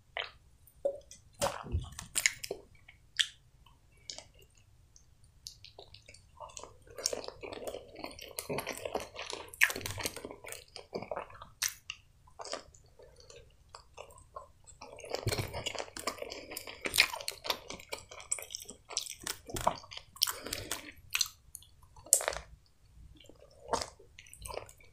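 A person chewing pizza: wet mouth sounds with clicks and smacks, coming in bouts.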